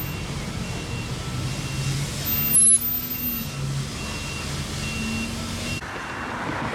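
Reversing alarm of a construction vehicle beeping at an even pace, a little more than once a second, over a low engine rumble. A brief loud burst of noise sounds about two and a half seconds in.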